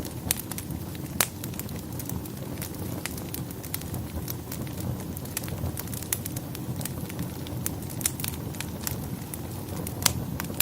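Wood fire in a fireplace crackling and popping over a steady low rumble of burning, with sharper pops about a second in and near the end.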